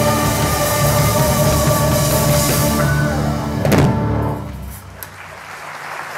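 Live soul-gospel band with electric bass, drum kit and choir holding the song's last chord, ending on one loud accented hit about four seconds in. The music then rings off and audience applause starts to build near the end.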